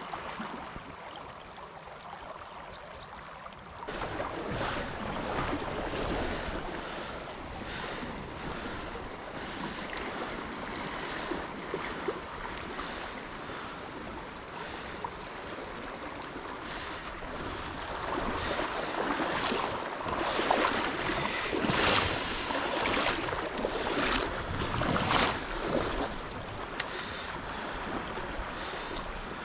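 Shallow river current rushing and splashing around a wader's legs as he moves through the water, stepping up about four seconds in and loudest with uneven splashy surges in the second half.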